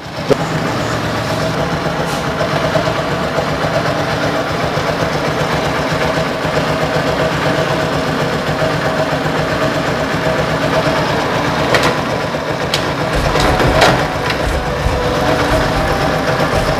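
Honda Dream Neo 110cc single-cylinder four-stroke motorcycle engine running steadily, freshly rebuilt with a new cylinder block and piston. It gets louder just after the start.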